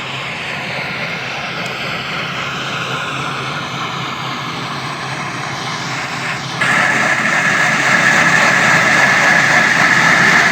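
Quarry machinery running steadily with a mechanical whir, growing suddenly louder about six and a half seconds in.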